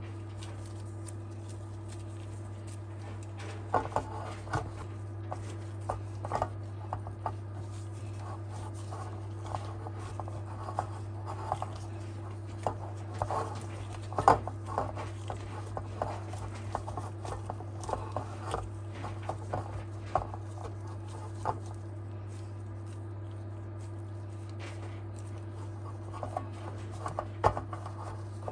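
Light irregular taps, clicks and scrapes of kitchen utensils handling cookware and ingredients, over a steady low electrical hum. The taps come in a busy run, pause for several seconds, then return briefly near the end.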